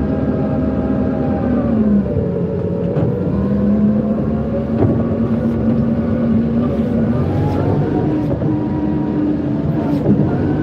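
Forklift running while being driven, its engine note dropping about two seconds in and rising again around eight seconds, with a few light clicks.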